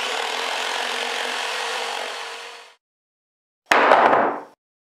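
A tool scraping or cutting along a pine board: one long continuous scratchy stroke that cuts off about two and a half seconds in, then after a short silence a second, shorter stroke.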